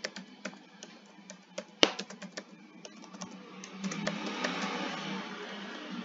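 Typing on a computer keyboard: irregular key clicks, one sharper click a little under two seconds in, over a low steady hum. A soft steady noise swells in the second half.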